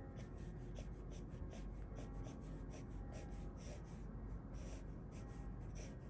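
Graphite pencil scratching across sketchbook paper in a quick run of short strokes, several a second, sketching the lines of a checkered wafer cone.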